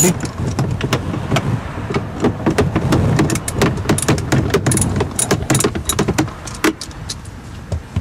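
Socket ratchet clicking in quick, irregular runs as 8mm bolts are loosened.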